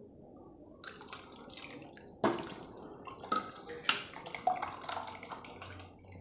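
Blended tomato soup being poured and strained, the liquid splashing and dripping, with several sharp knocks of a utensil or vessel against the strainer; the first knock is the loudest.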